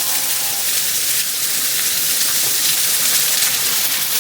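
Falling water of a waterfall rushing steadily, a loud, even hiss. The fall is only partly frozen, with water still pouring through the ice.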